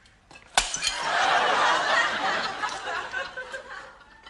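A china plate smashing on a hard floor about half a second in, followed by a studio audience laughing, the laughter fading near the end.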